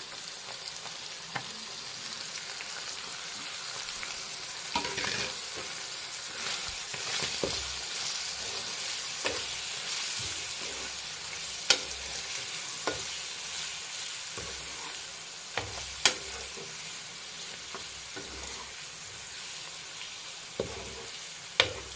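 Chicken pieces sizzling in oil in a coated frying pan while a steel spoon stirs and scrapes through them, with a few sharp knocks of the spoon against the pan.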